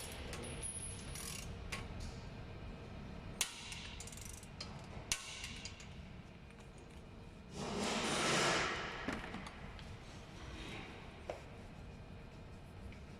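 Workshop work sounds: a few sharp metallic clinks and knocks of tools on the car's suspension parts, and about eight seconds in a rushing burst of noise lasting about a second and a half.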